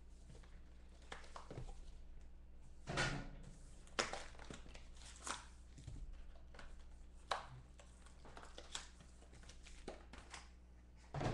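A cardboard box of trading cards being handled and opened. There are short taps, scrapes and light rustles, with a handful of sharper knocks, the loudest about three and four seconds in, as the lid comes off and wrapped card packs are set down on the table.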